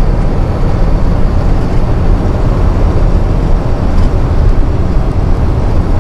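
Heavy truck's diesel engine and road noise heard steadily from inside the cab at highway speed, about 80 km/h, a dense low rumble with no change in pitch.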